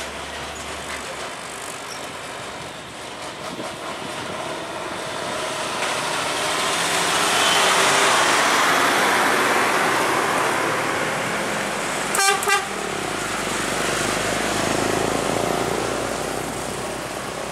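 Container semi-trailer trucks passing close by, their engine and tyre noise swelling as one goes past. About twelve seconds in, a vehicle horn sounds two short blasts.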